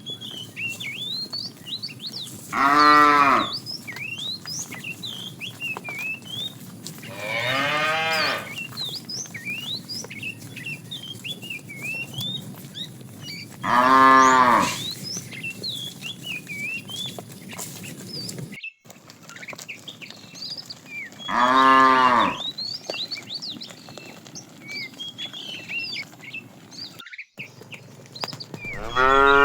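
Cattle mooing: five drawn-out moos, each about a second long, spaced several seconds apart, the last starting near the end, over a background of faint high chirps.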